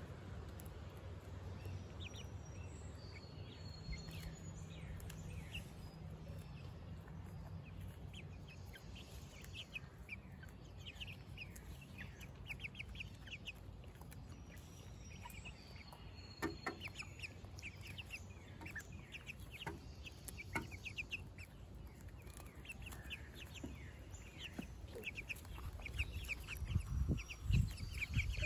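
A small flock of young hens making soft, rapid chirping clucks as they peck at a leafy green held out to them. A low rumble comes in near the end.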